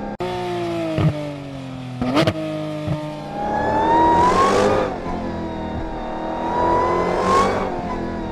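Sports car engine revving: its pitch sags over the first two seconds, with short sharp blips about one, two and three seconds in, then it revs up and eases back twice. It cuts off suddenly at the end.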